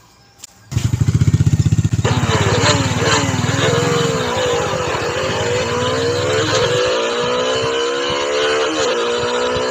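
Bajaj Dominar 400's single-cylinder engine pulling away and accelerating, cutting in loudly about a second in with a low throb, then rising and falling in pitch several times as it goes through the gears.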